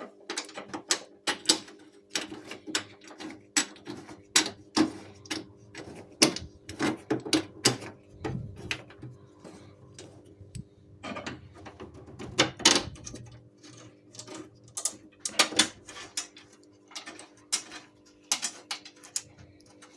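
Ratchet wrench clicking in irregular runs as M10 bolts are tightened to 25 newton metres, over a steady hum.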